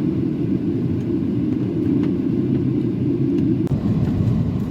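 Strong wind buffeting the camera microphone: a loud, steady low rumble with no clear pitch.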